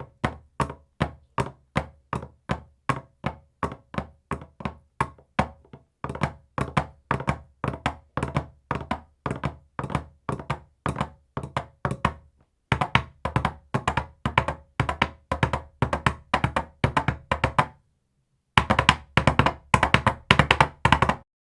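Coconut shell halves clopped together to imitate horse hooves, in steady hollow knocks. The rhythm quickens in stages with brief pauses between them, from an even walk-like beat of about three knocks a second to a fast gallop-like run near the end.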